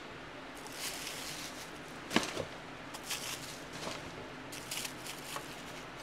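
Hands handling model engine kit parts and their packing: short rustles of foam and plastic wrap and light clicks, with one sharper click about two seconds in.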